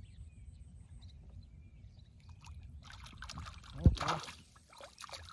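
A hooked fish thrashing at the surface beside a wooden boat on a hand line, splashing from about three seconds in, with one loud, sharp splash about four seconds in.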